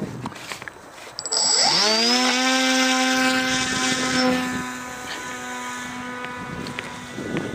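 Small model-aircraft motor and propeller spinning up with a quickly rising whine about a second in, then holding a steady pitched drone as the plane flies, a little fainter past the middle, and cutting out shortly before the end. Handling and rustling noise comes before it.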